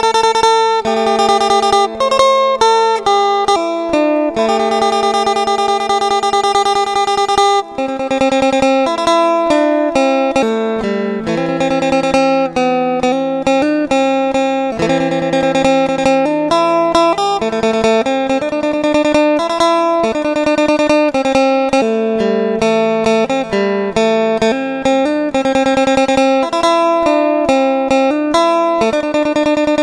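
Isan instrumental music on the phin, a Thai plucked lute, playing a fast picked melody over a steady drone.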